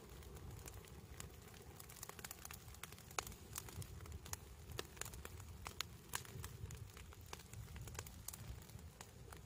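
Pile of dry fallen leaves burning, crackling with small irregular pops and clicks, over a faint low rumble.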